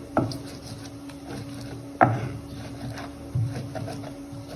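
Three sharp knocks, the loudest about two seconds in, over a steady low hum.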